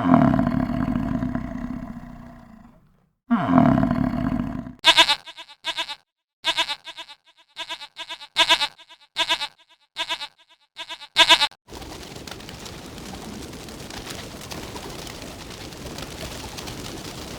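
Animal calls: two long calls that fall in pitch, then about ten short, sharp calls in a quick, uneven series, followed by a steady hiss of noise for the last several seconds.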